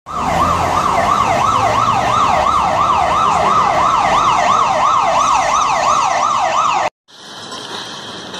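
Emergency vehicle siren in a fast yelp, its pitch sweeping rapidly up and down about three times a second. It cuts off abruptly about seven seconds in, leaving a quieter steady background noise.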